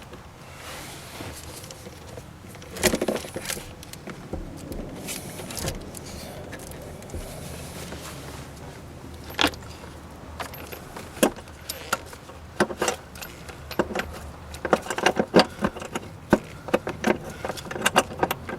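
Scattered metallic clinks, clicks and knocks of hand tools and metal parts being handled around a car battery. They are sparse at first and come rapidly in the last few seconds.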